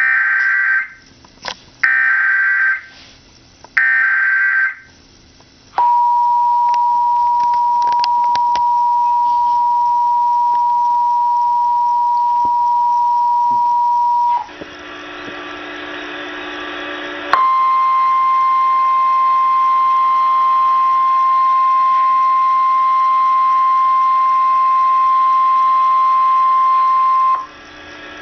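Emergency Alert System warning tones. Three short screeching bursts of SAME header data open it, followed by the two-tone EAS attention signal held for about eight seconds. After a brief fainter gap comes the single steady 1050 Hz NOAA Weather Radio warning tone for about ten seconds, the signal that a voice warning message follows.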